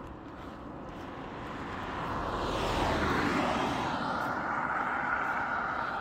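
Road traffic: a vehicle passing on the road, its tyre and engine noise swelling to a peak about halfway through and then easing off.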